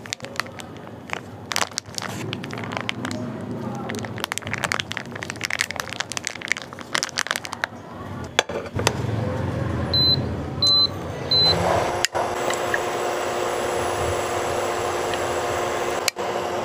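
Foil-lined plastic meat package crinkling and crackling as it is handled, for roughly the first half. Later, three short high electronic beeps, followed by a steady machine hum.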